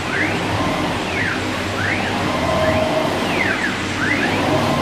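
The axis drive motors of a 1530 CNC wood router whine, the pitch sweeping down and up again roughly every second as the gantry slows, reverses and speeds up, over a steady machine hum.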